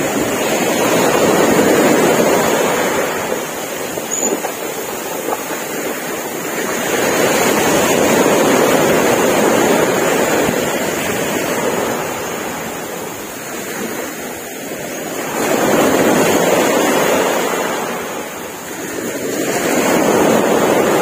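Sea waves breaking and washing up a sandy beach, the surf swelling and ebbing four times, about every six seconds.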